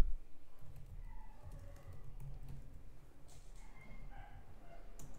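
Quiet typing on a computer keyboard, keystrokes entering a short terminal command.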